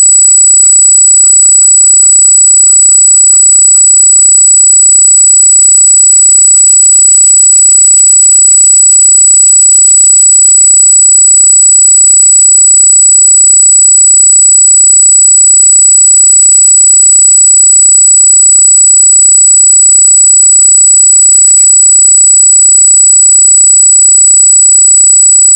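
Loud, steady, high-pitched electronic squeal: several fixed tones held without a break, the strongest very high. It is an unexplained artifact on the trail camera's audio track.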